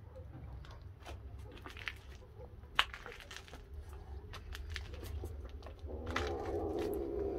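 Scattered small crunching clicks, then about six seconds in a cat's low, drawn-out call that carries on past the end.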